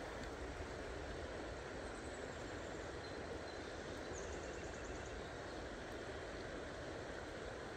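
Steady rush of river current flowing, an even, unbroken noise. A brief faint high trill comes about four seconds in.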